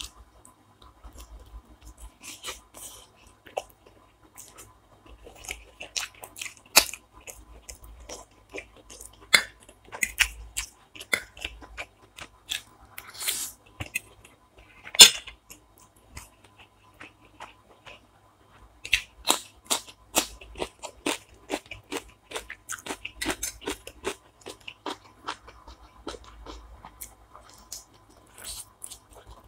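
A person chewing and biting food close to the microphone, with many sharp crunchy bites and wet chewing. The loudest crunch comes about halfway through, followed by a brief lull.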